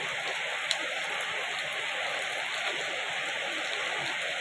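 Heavy rain falling steadily onto a flooded paved street, the drops splashing into standing water.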